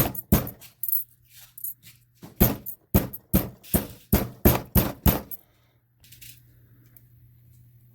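A hammer striking a piece of 20-gauge copper sheet to flatten it: quick ringing metal blows, about three a second, with a short pause early on, stopping a little after five seconds.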